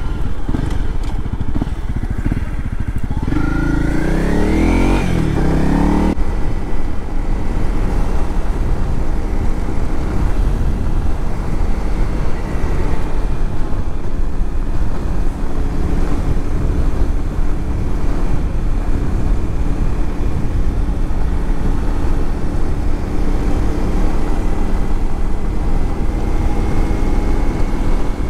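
Honda CRF Rally dual-sport motorcycle's single-cylinder engine accelerating, its revs rising for a few seconds about three seconds in and breaking off at a shift. Then it runs at a steady cruising speed under a heavy low rumble of wind.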